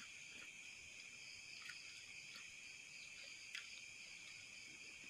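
Near silence, with a faint steady chorus of insects and a few faint clicks.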